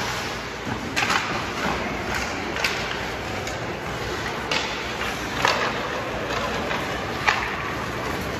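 Ice hockey play heard in an echoing arena: sharp clacks of sticks and puck, several at irregular intervals with the loudest about seven seconds in, over a steady rink hum.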